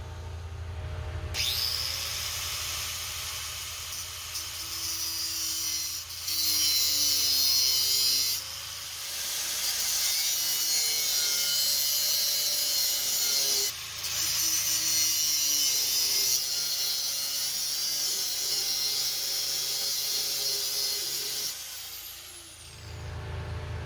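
A handheld power tool spins up, then cuts or grinds with a steady hiss that grows louder and softer as the load changes, and winds down near the end.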